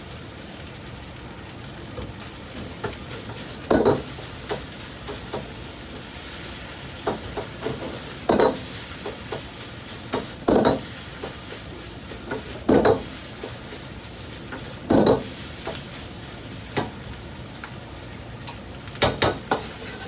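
Metal ladle clanking and scraping against a wok as fried rice is stir-fried, over a steady hiss of the rice frying. Six loud clanks, mostly about two seconds apart, with lighter clicks between.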